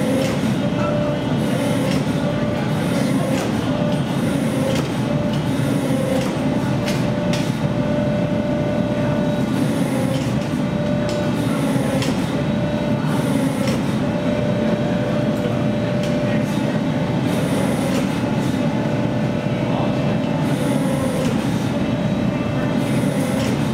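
Steady, loud machinery noise with a wavering hum and a few faint clicks, from a ram-type forging machine running while glowing steel is worked under its ball-shaped die.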